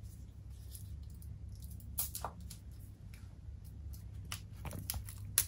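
Small plastic spider vial and deli pots being handled and opened, a few light clicks and scrapes of plastic over a low steady hum.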